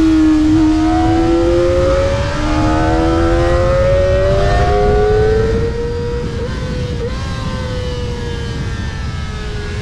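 Kawasaki ZX-25R's 250cc inline-four engine held at high revs, a high-pitched engine note that drifts slowly up and down in pitch and gets somewhat quieter a little past halfway.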